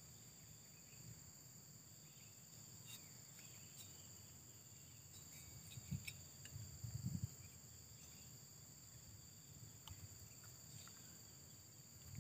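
Faint, steady high-pitched chirring of insects such as crickets. A few soft low thumps of parts being handled come about six and seven seconds in.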